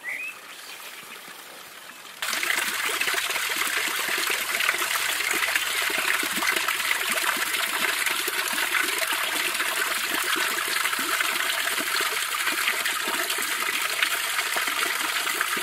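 Water from the spout of a stone-wall fountain falling in a thin stream and splashing into the stone trough below: a steady, close splashing trickle that starts suddenly about two seconds in.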